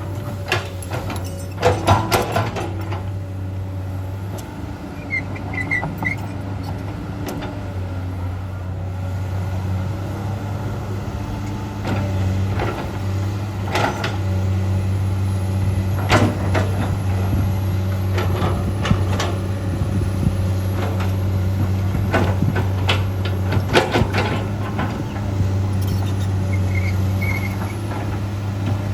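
Komatsu PC200-8 hydraulic excavator's diesel engine running steadily, working harder from about twelve seconds in, with scattered knocks from the digging gear.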